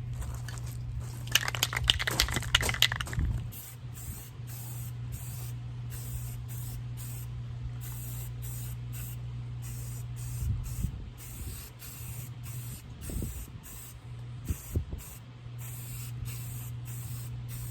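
Aerosol spray paint can spraying in a series of short bursts, over a steady low hum.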